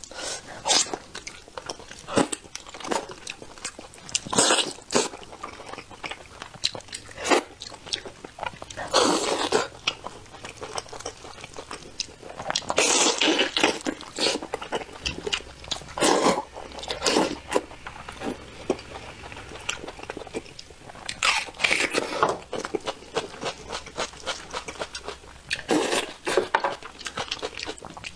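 Close-miked eating: biting into and tearing braised spicy lamb ribs off the bone with the teeth, with irregular chewing, smacking and crunching sounds.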